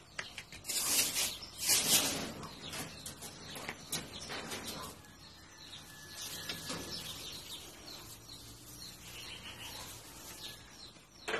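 Rustling and handling noise as fresh grass is pushed into a rabbit cage, loudest in a few bursts in the first two seconds, then dying down to scattered small rustles over a low steady background.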